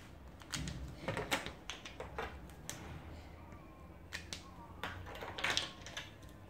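Dry-erase markers being handled at a whiteboard: caps snapping off and on and markers knocked against and set down on the board's ledge. It comes as a series of sharp clicks, with a quick cluster about five and a half seconds in.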